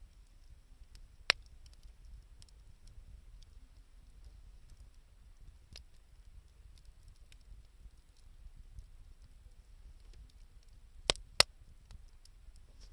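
Wood fire of scavenged sticks and reused 2×4 lumber crackling, with scattered small ticks over a low rumble and three sharp pops: one about a second in, and two in quick succession near the end.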